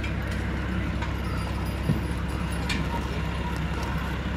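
A team of draft horses hauling a load across a dirt ring, with a few sharp knocks about two seconds in and again shortly after, over a steady low rumble.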